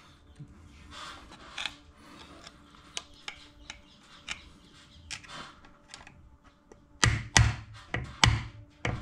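Quiet scraping and small clicks of steel parts being worked on a milling-machine spindle's bearing lock nut and lock washer, then about five sharp taps in quick succession near the end as the nut is tapped round.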